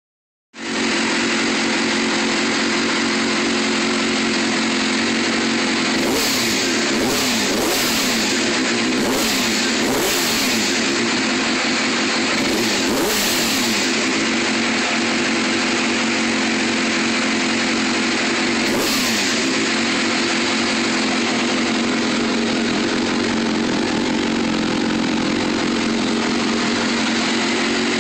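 Suzuki Gixxer motorcycle engine running steadily, its throttle blipped several times in quick revs between about six and fourteen seconds in and once more near nineteen seconds. The owner hears a small unusual noise in it.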